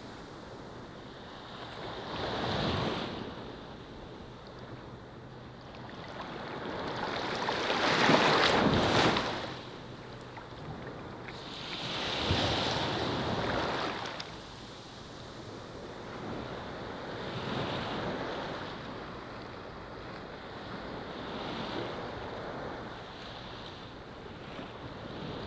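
Ocean surf: waves breaking and washing in, swelling and fading about every four to five seconds, the biggest about eight seconds in.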